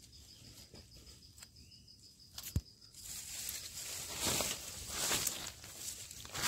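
Eating sounds from chicken curry and rice: scattered clicks and wet smacks of chewing and handling food, with one sharp click about two and a half seconds in, then noisy smacks about once a second.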